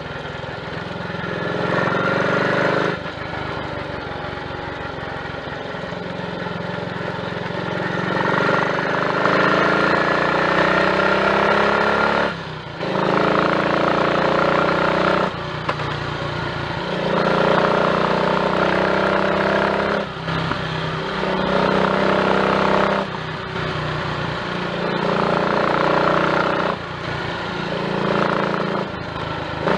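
Triumph Tiger Cub's small single-cylinder four-stroke engine running on the road under way, its note climbing under throttle and dropping back several times. It is running cleanly without misfiring, on a leaner carburettor setup with a new slide, needle, needle jet and main jet.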